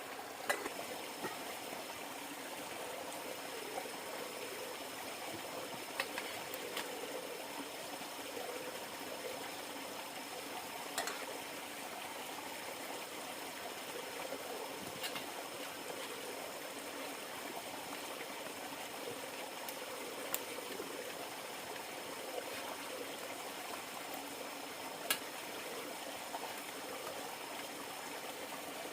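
River water flowing steadily, with a few sharp clicks now and then and a faint steady high tone.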